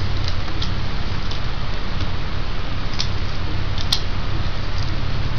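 A few light clicks and taps from fingers pressing the video ribbon cable and its tape onto the back of a laptop LCD panel, the sharpest about four seconds in, over a steady low hum.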